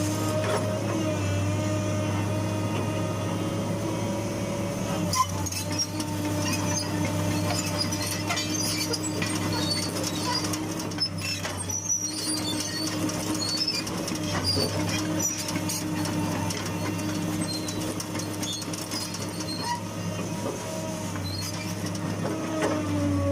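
Hitachi UH045-7 hydraulic excavator's diesel engine running steadily under work, its pitch dipping briefly near the end, with scattered clicks and one sharp knock about five seconds in.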